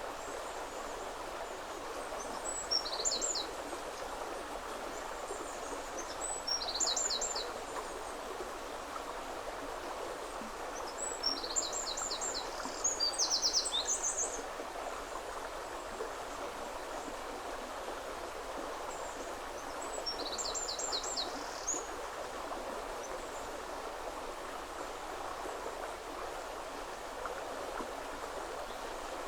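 River water flowing steadily over a stony bed, with a small songbird singing four short phrases of quick repeated high notes over it, the longest about 12 seconds in.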